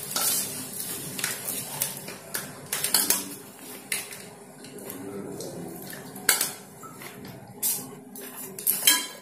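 Metal spoon scraping and clinking against a stainless steel plate while eating: irregular light clinks, a few louder ones in the second half.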